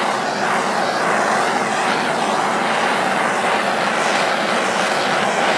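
Handheld gas torch burning with a steady hiss, its flame heating a strip of PVC pipe to soften it for bending.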